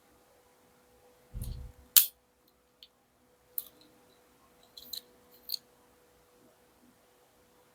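Handling of a small diecast model car and its plastic packaging: a low thump, then a sharp click about two seconds in, the loudest, followed by a few lighter clicks and taps. A faint steady hum underneath.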